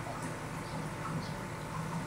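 Aquarium pumps and aeration running: a steady hum with an even hiss of bubbling water.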